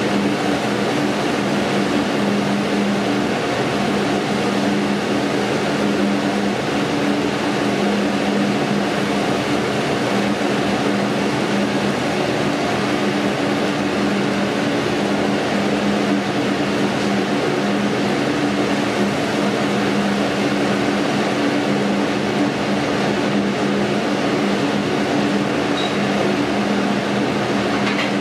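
A steak cooking on a grill: a steady, even hiss with a low, constant hum under it, and one small pop near the end.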